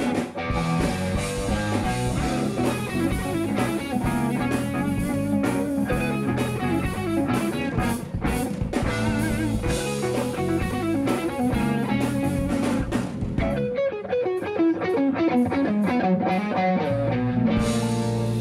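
Live instrumental jazz-funk band playing: drum kit, electric bass, electric guitar and keyboard together. About fourteen seconds in, the drums and bass drop out and the guitar and keys play on alone, then a low bass part comes back in near the end.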